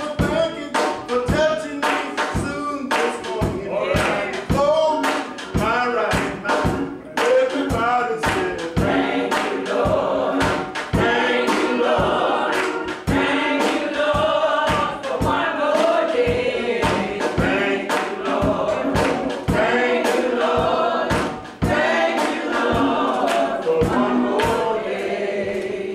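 Church choir singing a gospel song, with sharp beats about twice a second keeping time.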